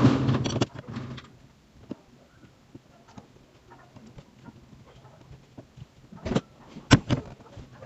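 Hands and tools working on a car's steering column: a loud rustling scrape at the start, then scattered small clicks and two sharp knocks about six and seven seconds in.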